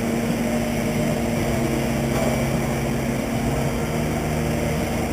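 Electric RC stock trucks running around the track: a steady motor drone over a constant hum.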